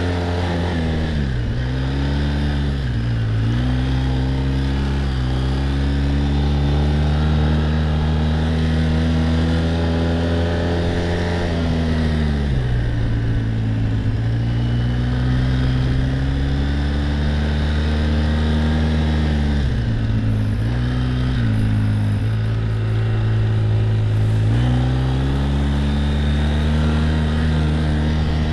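Quad bike (ATV) engine running under way, its pitch shifting with the throttle: it dips a few times early on, drops lower about twelve seconds in, and climbs again a few seconds before the end.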